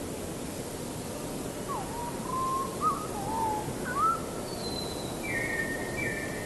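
A bird calling: a run of short whistled notes that slide up and down, then two flat, higher notes near the end, over a steady hiss.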